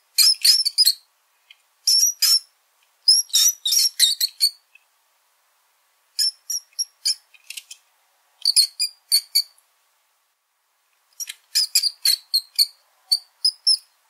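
Small rodent squeaking: rapid, high-pitched squeaks in about six short flurries, with pauses of up to about a second and a half between them.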